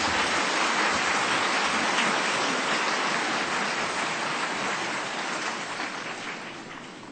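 Large audience applauding, a dense, steady clapping that slowly dies away toward the end.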